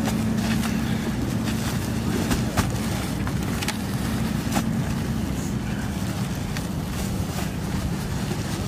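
A steady low engine hum runs throughout, with scattered sharp clicks and rustles from sandbags being handled.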